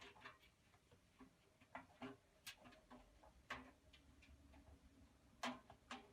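Faint, irregular light clicks and taps, a dozen or so scattered unevenly, over near silence.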